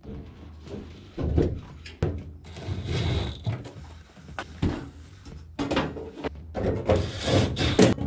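Sheet-metal front door panel of a Goodman gas furnace scraping and knocking as it is handled and fitted back onto the cabinet, in several irregular bursts.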